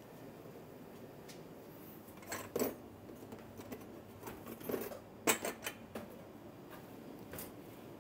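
Kitchen clatter: a few scattered light clinks and knocks of dishes and utensils over a steady low background hum.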